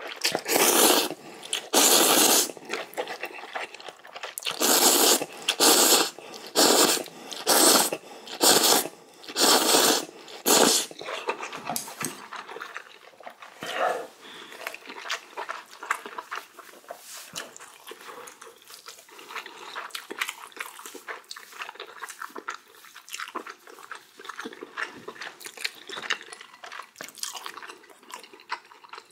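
A person slurping instant ramen noodles: about ten loud, short slurps in the first ten seconds or so, then quieter chewing with small wet clicks.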